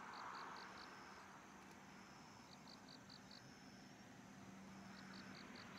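Faint chirping of crickets: short runs of four or five quick chirps that come back every two to three seconds, over a thin steady high trill.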